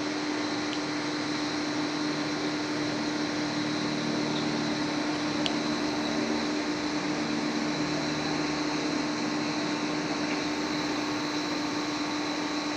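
Romi GL280 CNC lathe running: a steady machine hum carrying a constant mid-pitched tone and a fainter high whine, with a few faint ticks.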